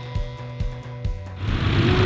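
Brief music with steady held tones and a regular low beat. About one and a half seconds in, propeller aircraft engine noise cuts back in.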